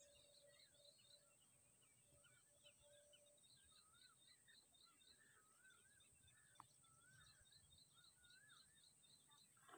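Faint birdsong from several birds: quick series of short high chirps, about five a second, and wavy warbling whistled notes, over a constant thin high whine.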